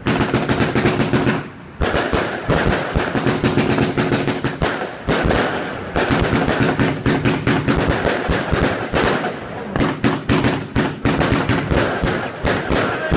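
Consumer fireworks cake from a Royal Fireworks Mega Cakebox firing: rapid runs of shots and bursting stars, several a second, with brief lulls about 2, 6 and 10 seconds in.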